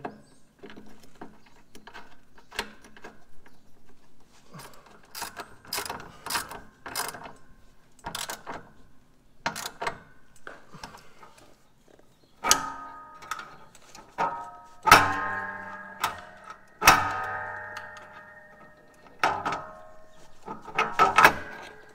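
Socket ratchet clicking in short runs as the bolt of a mower's drive-belt idler pulley is tightened, then, about halfway through, a series of sharp metallic clanks that ring on briefly, from the tensioner and its spring being worked under the mower.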